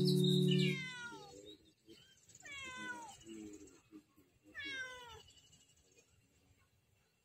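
Domestic cat meowing three times, each meow sliding down in pitch, spaced about two seconds apart. Background music cuts off within the first second, before the first meow.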